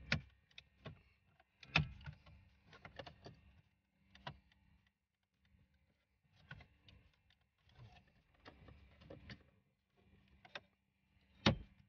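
Plastic dashboard trim clips snapping and clicking as a car's centre-console trim panel is pulled free by hand and handled, with plastic rustling between. A few sharp loud clicks stand out: one at the start, one about two seconds in, one about four seconds in, and one near the end.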